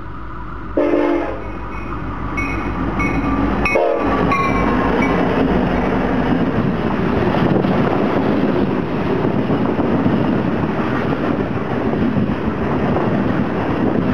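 EMD SD70ACe freight locomotive sounding its Nathan K5LLA horn, a short blast about a second in and a longer, broken one a couple of seconds later, as a fast freight train approaches and passes. After the horn, a loud steady rush of wheels and cars on the rails.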